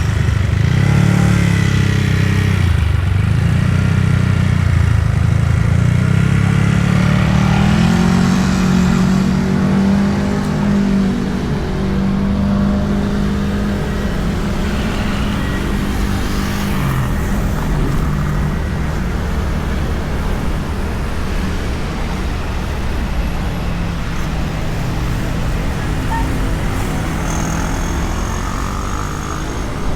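Honda Beat scooter's engine running under way, its note rising and falling during the first half and then steadier and a little quieter, over a constant low wind rumble on the bike-mounted microphone.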